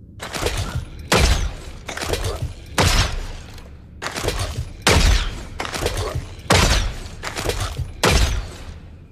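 Compound bow and arrow sound effect fired five times, about every 1.6 to 2 seconds. Each shot is a softer noisy onset followed about a second later by a sharp, louder hit.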